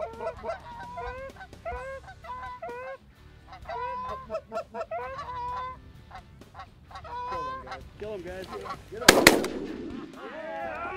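Canada geese honking repeatedly, then two shotgun blasts in quick succession about nine seconds in, as each of two hunters fires once at the incoming pair and drops the birds. Honking goes on briefly after the shots.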